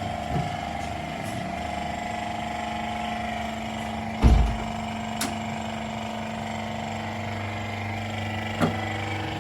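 An engine idling steadily, with one loud thump about four seconds in and lighter knocks about a second later and near the end.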